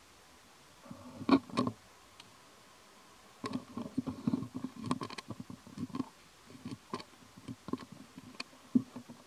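A young macaque chewing lotus fruit: soft, irregular crunches and clicks, a short cluster about a second in, then a longer, uneven run from about three and a half seconds on.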